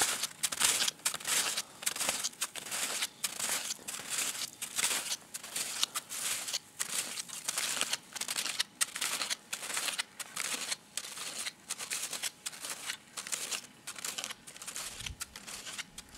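Snowshoe footsteps crunching in snow, a steady walking rhythm of about one crunch a second, getting somewhat quieter near the end.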